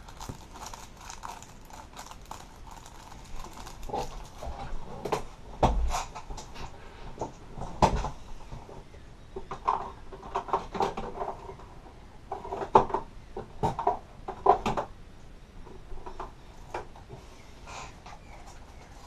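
Small phone parts and batteries being handled and rummaged through: irregular clicks, taps and light rattles, busiest about halfway through.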